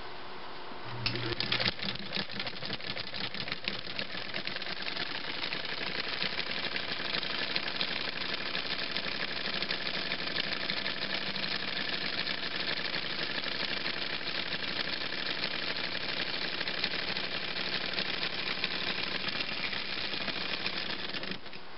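Domestic 69 Hi-Speed sewing machine, run by its electric motor, stitching through three layers of denim. A fast, even mechanical clatter of needle bar and rotary hook starts about a second in and stops shortly before the end.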